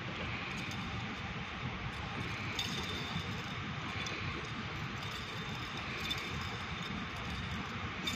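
Steady room-noise hiss of a large indoor hall, with a few faint sharp ticks, one a little over two and a half seconds in and another near the end.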